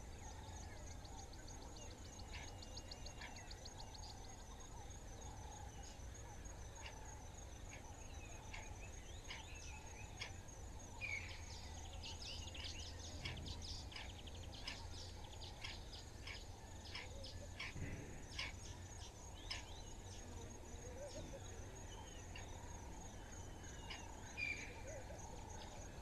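Dawn bush ambience: a steady, high-pitched, evenly pulsing insect trill, with scattered short bird calls and chips over it that are busiest in the middle, all over a low steady hum.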